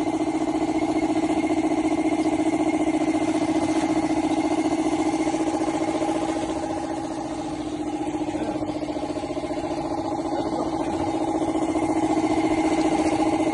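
A small pump engine running steadily at a constant speed with a fast, even pulse, driving water through a hose into a tube-well pipe. It dips a little in loudness about halfway through.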